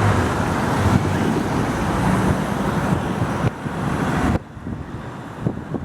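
A Tatra T3 tram running past on a city street, a loud steady rumble with a low hum mixed with traffic noise. About four seconds in, it cuts off suddenly to quieter street sound with scattered clicks.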